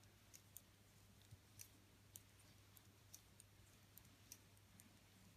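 Faint, irregular clicks of metal knitting needles as stitches are knitted off, about two a second, over a low steady hum.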